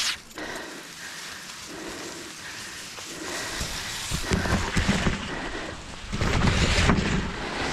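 Tall grass brushing and rustling against the camera as it pushes through, with rumbling bumps and buffeting on the microphone that grow louder from about halfway and are loudest near the end.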